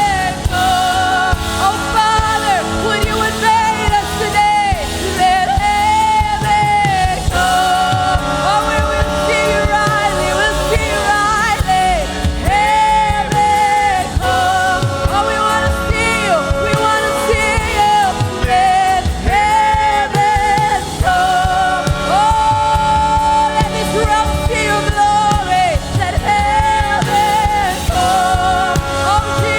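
Live worship music: a singer holds long, wavering notes over a band with a steady beat.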